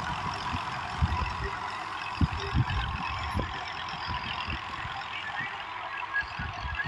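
Tractor running under load as it pulls a rotary tiller through dry soil: a steady mechanical noise, with irregular low thumps.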